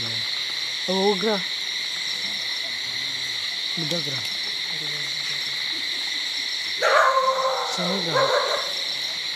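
Steady high-pitched night chorus of insects, with short, low, wavering hoots about a second in, at about four seconds and near eight seconds, and a louder harsh call around seven seconds.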